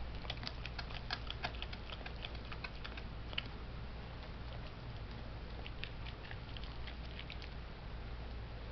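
Dog chewing a raw pork trotter: irregular sharp cracks and clicks of teeth on bone, coming in two spells with a lull between.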